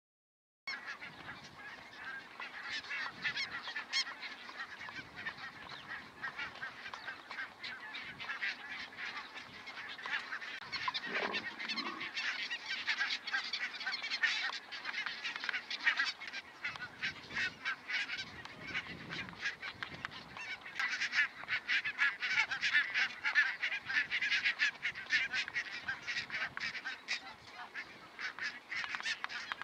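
A flock of barnacle geese calling continuously: a dense chatter of many short, yapping honks. It starts abruptly just under a second in.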